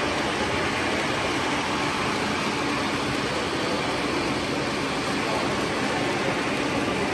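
Model freight train's flatcars rolling past on the track: a steady rolling noise of the wheels on the rails.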